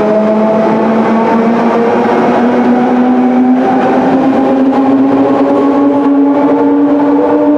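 London Underground 1972 Mk 1 stock train running out of sight in the tunnel: a loud rumble with a whine of several tones that rises steadily in pitch as it gathers speed.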